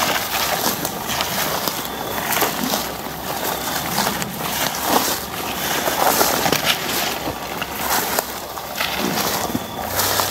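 Footsteps and rustling as people push slowly through tall grass and brush, stems and leaves crackling and brushing against clothing in an irregular stream.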